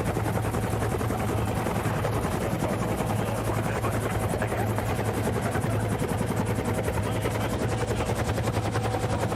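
Helicopter running steadily: a fast, even beat of rotor blades over a steady low hum.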